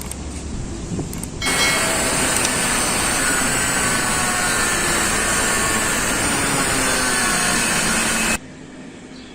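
Stick welding arc burning: a loud, steady hiss that starts about a second and a half in and cuts off suddenly near the end as the arc is broken.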